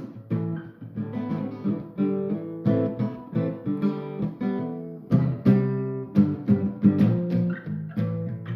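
A guitar being played: plucked notes and chords, one attack after another.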